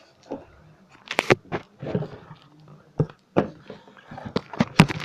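A string of sharp clicks and knocks as small objects are picked up and set down by hand, about seven distinct knocks over a few seconds.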